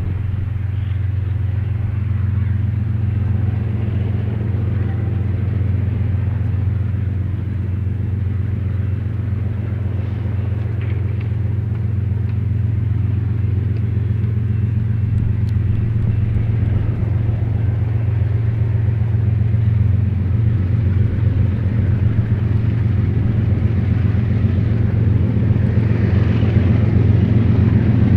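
Diesel locomotives of a BNSF freight train approaching: a steady low engine drone that grows steadily louder.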